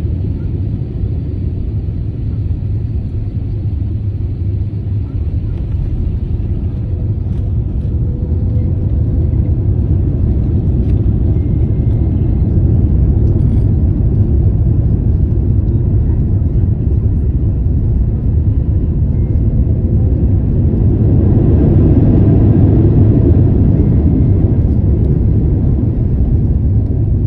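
Airliner landing: a steady low rumble that grows louder through the middle and swells again near the end.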